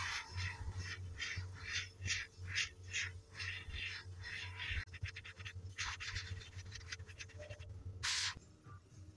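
Airbrush spraying thinned acrylic paint in short hissing bursts, about two to three a second, then a quicker cluster and one longer burst near the end: short trigger pulls to lay a gradient on a small area. A steady low hum runs underneath.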